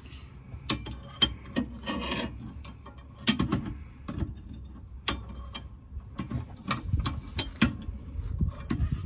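Steel combination wrench clicking and clinking on the lower mounting nut of a rear shock absorber as the nut is worked loose. The clicks are sharp, metallic and irregular.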